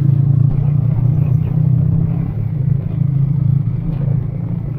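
Motorcycle engine running steadily at cruising speed on the open road, a constant low drone with road and wind noise, easing slightly in loudness toward the end.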